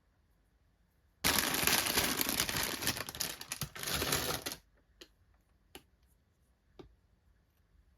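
Doll packaging being opened by hand: a dense crinkling, tearing rustle for about three seconds that stops abruptly, then three light clicks.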